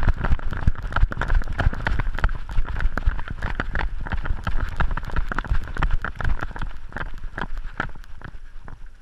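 GoPro hung from a running pit bull's neck, jostling and knocking against the dog with each stride: a fast, irregular clatter of knocks over a low rumble, easing off near the end as the dog slows.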